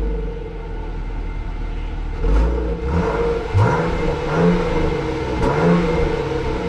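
Exhaust of a Jeep Grand Cherokee L's 3.6-liter naturally aspirated V6 idling, then revved in a few short blips in the second half, the pitch rising and falling each time.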